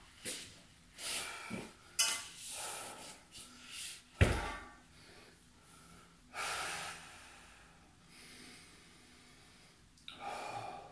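A man breathing hard, with a series of heavy exhales and puffs, after a core exercise. About four seconds in there is a single loud thud, as of exercise equipment set down on a foam floor mat.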